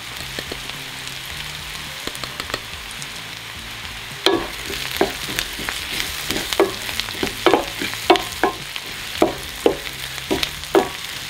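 Sliced onions sizzling as they caramelize in butter and oil in a stainless steel skillet, a steady frying hiss. From about four seconds in, a wooden spatula stirs them, scraping the pan in quick strokes about twice a second.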